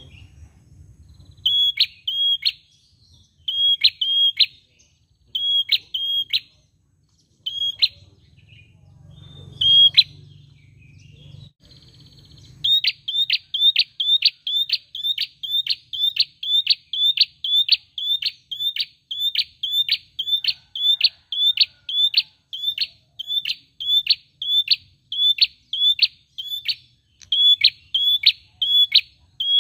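A caged tailorbird calls with loud, sharp, high repeated notes. At first the notes come in short groups a couple of seconds apart. From about halfway in they run on in a fast, unbroken series of two to three notes a second.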